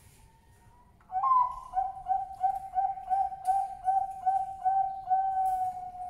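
Male Bangkok perkutut (zebra dove) singing its cooing song. It opens with a higher note about a second in, then runs quickly through about ten short, even coos at roughly three a second, and ends in a longer drawn-out coo.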